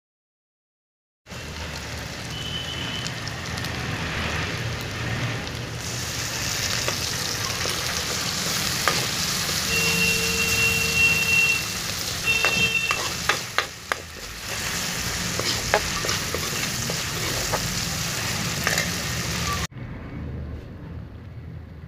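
Chopped onions and tomatoes sizzling in hot oil in a metal pan, stirred with a steel spoon that scrapes and clicks against the pan, the clicks coming thickest around the middle. It starts after a second of silence and drops to a quieter hiss near the end.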